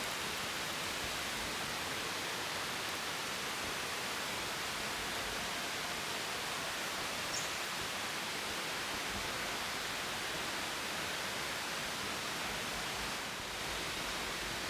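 Steady, even hiss of outdoor ambient noise, with no distinct events.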